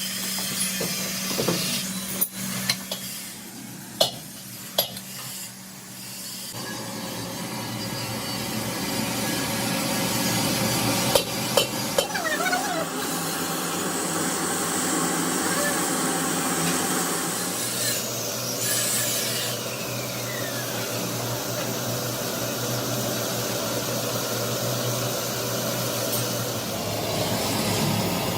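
Workshop tool and machine noise: a few sharp knocks and taps, then from about six seconds in a steady machine running with a low hum, growing louder, with a couple more knocks and a high whine that falls away about two-thirds through.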